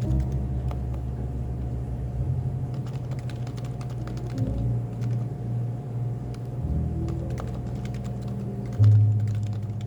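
Keystrokes on a Happy Hacking Keyboard with Topre capacitive switches, scattered and unhurried, over café background music with sustained low bass notes; a louder low note comes in near the end.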